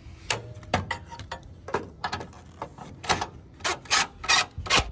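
Cordless DeWalt impact driver running a bumper mounting bolt in several short, loud bursts near the end. Clicks and knocks of metal being handled come before them.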